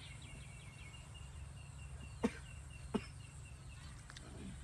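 Quiet pond-side ambience over a steady low rumble: a bird chirps in a quick series at the start, and two sharp taps come a little over two and three seconds in.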